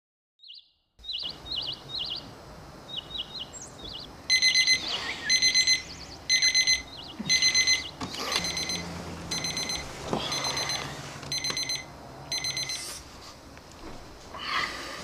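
Birds chirping, then a digital alarm clock beeping in quick bursts about once a second. The beeping stops a couple of seconds before the end, as a hand reaches to switch it off.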